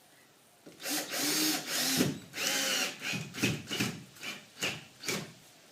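Cordless drill driver running, driving screws into a plasterboard ceiling: it starts about a second in with one long run of about two seconds, its pitch shifting, then gives a string of short trigger bursts about every half second.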